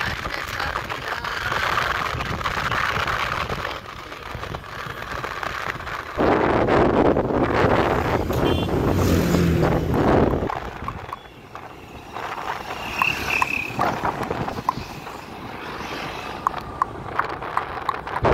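Wind rushing over the microphone of a camera riding on a moving motorcycle, mixed with road and traffic noise. The wind noise grows much louder from about six to ten seconds in.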